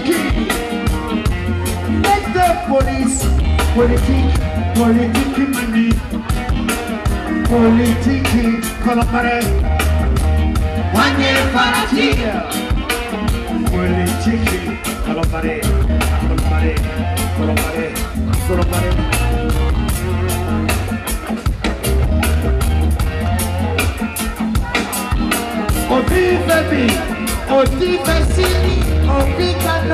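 Live band music: singers over drums, bass and electric guitar, with a steady beat of drum strokes and a pulsing bass line.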